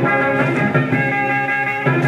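A 45 rpm record playing music through a restored 1956 RCA 7-HF-45 Orthophonic record player's four-tube amplifier and woofer-and-tweeter speakers, with little deep bass.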